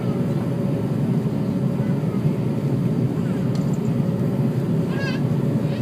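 Steady drone inside the cabin of an Airbus A340-300, made up of engine and airflow noise, with a faint steady hum running through it.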